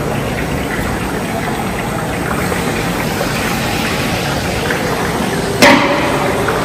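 Steady hiss and crackle of chickpea-flour sev frying in hot oil in large woks over gas burners. One sharp knock comes about five and a half seconds in.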